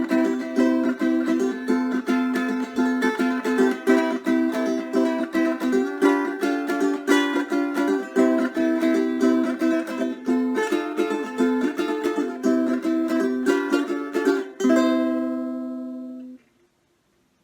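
Quick, busy picked ukulele music, with notes in rapid succession, ending on a held chord that rings out and fades about two seconds before the end.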